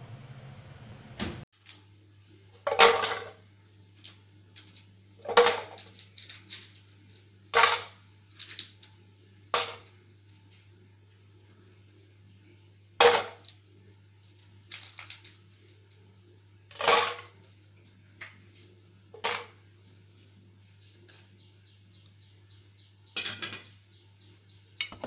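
Ice cubes clinking against a glass jar: about ten sharp clinks, a few seconds apart, over a steady low hum.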